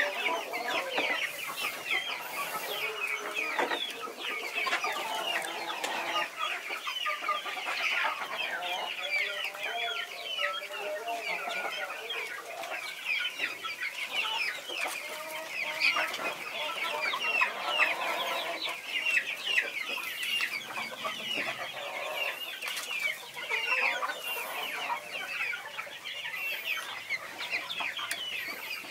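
A mixed flock of chickens clucking and chattering while they feed at a trough: a dense, continuous mix of short overlapping calls from many birds.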